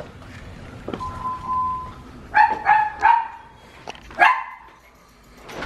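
Small dog barking: three quick barks about halfway through, then one more a second later.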